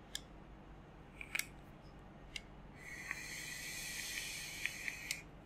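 Air hissing and whistling quietly through the wide-open bottom airflow of a Guillotine RDA on a Wismec Luxotic MF squonk mod during a draw of about two seconds, with faint crackles from the firing coil. A few light clicks of handling the mod come before it.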